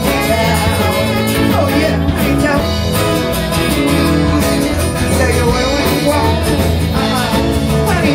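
Live band music: acoustic guitars strummed, with singing.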